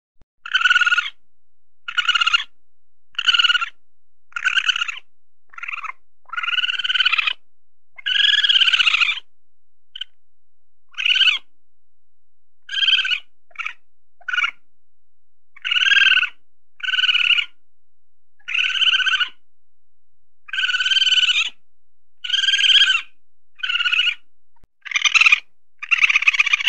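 Weasel calling: a long run of short, high-pitched calls repeated about once a second, a few of them drawn out to about a second.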